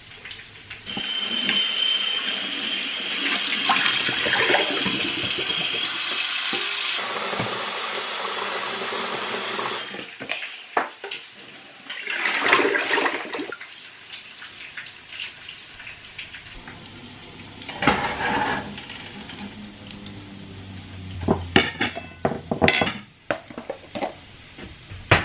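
Kitchen tap running hard into a metal cooking pot, filling it with water for about nine seconds, its pitch changing partway through. Shorter bursts of running water follow, then a few sharp clicks and knocks near the end.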